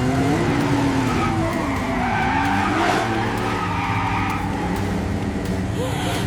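Sound effects of racing car engines revving, their pitch rising and falling continuously, with tyre squeal.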